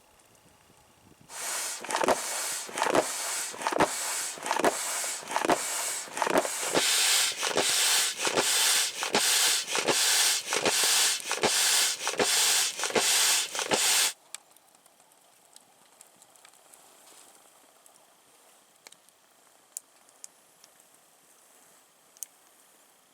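Air pump inflating an air mattress: rhythmic pumping strokes about two a second with a loud rush of air, stopping suddenly after about twelve seconds.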